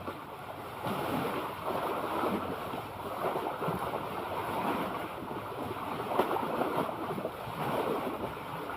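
Sea waves washing in and out, swelling and easing every second or two, with wind buffeting the microphone.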